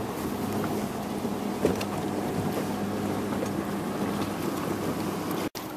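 Boat engine running with a steady low hum under a broad hiss. The sound cuts out for an instant near the end.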